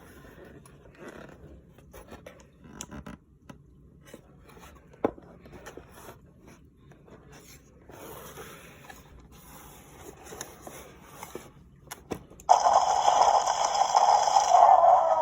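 Toy packaging being handled and opened: quiet scraping and a few sharp clicks. Near the end a loud, harsh sustained sound starts suddenly and holds steady for a few seconds.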